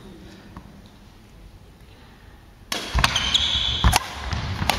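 Badminton rally on a wooden hall floor: faint racket hits at first, then, from a little past halfway, louder sharp cracks of rackets striking the shuttlecock about three times, with short high squeaks of court shoes on the floor.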